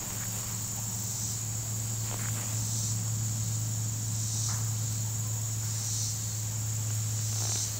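Insects buzzing in a steady high chorus that swells every second or two, over a steady low hum.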